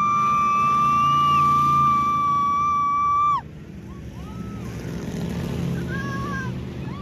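Race car engines at full throttle. One engine holds a steady high note, then drops in pitch and falls away about three and a half seconds in as the car lifts off. The rest of the pack follows with quieter, shorter revs over a low rumble.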